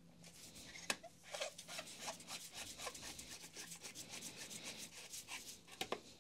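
Flathead screwdriver screwing a carbon-brush holder cap into the motor housing of a Makita HR5001C rotary hammer: a fast run of faint rubbing, scraping strokes as the cap turns, with a sharp click about a second in and another near the end.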